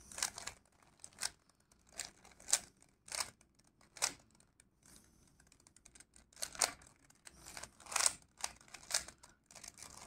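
A 3x3 Rubik's cube being turned by hand: each layer turn makes a short plastic click and rasp. There are a dozen or so turns, spaced irregularly, coming faster in the last few seconds.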